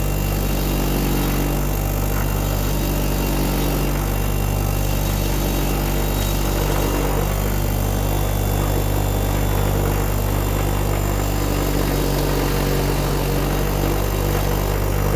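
Electric wire buff wheel running steadily with a constant motor hum, and a rough scratching across it as a pump part is held to the wire brush to clean off old deposits.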